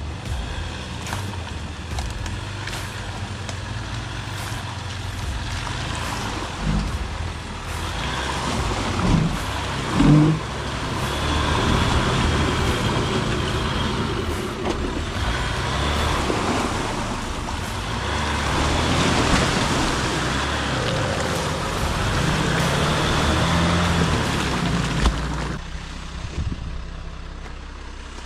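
Jeep Wrangler engine running at low speed as it crawls through mud and over a rough forest trail, with a few short knocks about a third of the way in.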